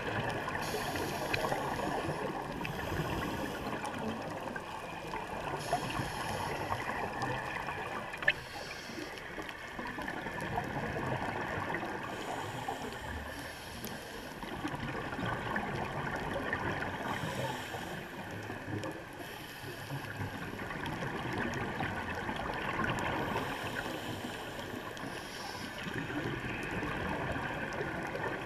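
Underwater ambience: a steady muffled rushing, with scuba divers' exhaled bubbles gurgling up in irregular bursts every few seconds. One sharp click about eight seconds in.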